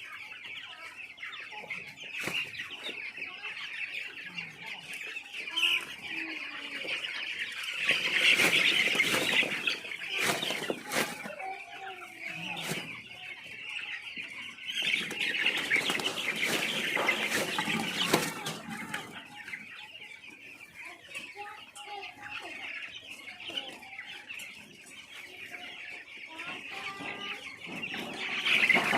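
A large flock of chicks in a poultry house peeping all together without a break. There are two louder spells, about a third of the way in and again just past halfway, with wing flapping among the birds.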